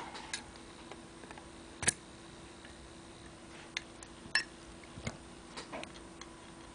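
Scattered small metal clicks and taps from a screwdriver, screws and keys being worked off a clarinet. There are about half a dozen clicks, the sharpest about two seconds in, over a faint steady hum.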